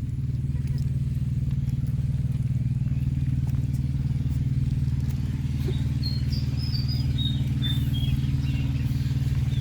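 A small engine running steadily at one constant speed, with a few short high-pitched chirps over it about six to eight seconds in.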